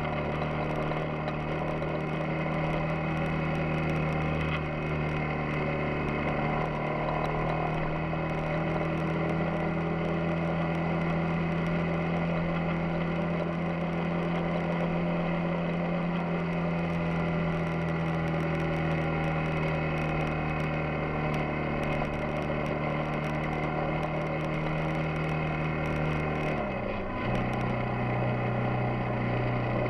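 Yamaha XTZ 250 Ténéré's single-cylinder engine running at a steady pitch under way, then dropping quickly to a lower steady pitch near the end.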